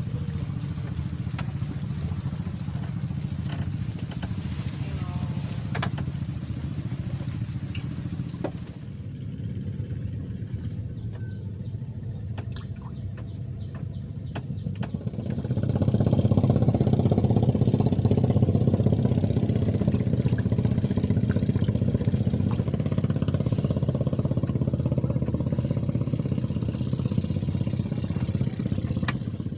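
An engine running steadily, with a low hum that gets clearly louder about halfway through and stays loud.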